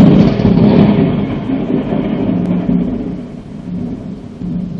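Thunderclap from a very close lightning strike: a sudden crack that breaks into a heavy, low rumble, dying away slowly over about four seconds.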